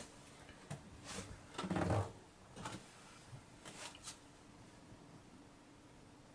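Mostly quiet small-room tone with a few faint clicks and rustles and one short low murmur about two seconds in. A faint steady hum runs underneath.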